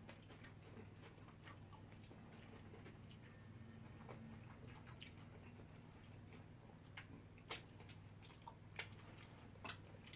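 Quiet eating: faint chewing with a few sharp clicks, the loudest in the last third, over a low steady hum.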